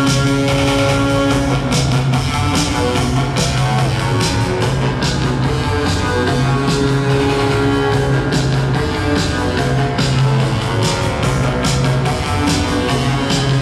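Instrumental band music with a steady drum beat and held bass notes, without singing.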